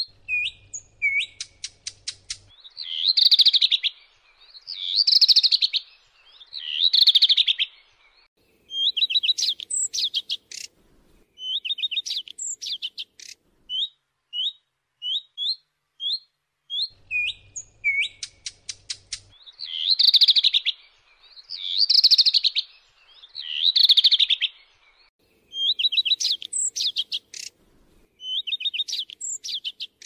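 Common redstart calling: short rising whistled notes and runs of rapid ticks, with three louder rough notes in a row. The whole sequence starts over again about halfway through, a looped recording.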